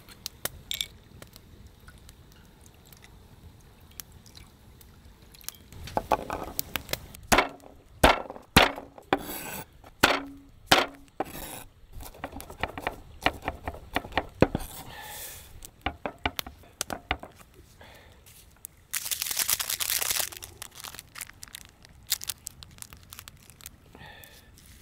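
Camp cooking gear being handled: a run of sharp clicks and knocks from about six to fifteen seconds in, then a hiss lasting about a second around twenty seconds in.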